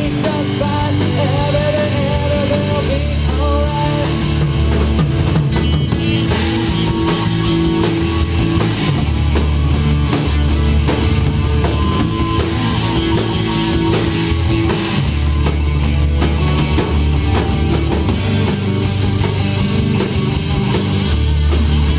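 A live rock band playing, with drum kit beating a steady rhythm under guitars and bass.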